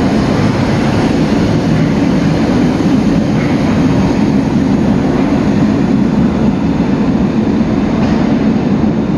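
Old Astra IVA metro train pulling out along the platform and into the tunnel, a steady rumble of wheels and running gear that stays even throughout.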